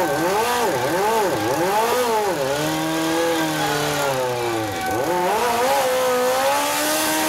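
Sidecar motorcycle's engine revved in quick repeated throttle blips, about two a second, then held at steady higher revs. The revs drop sharply once and pick up again near the end.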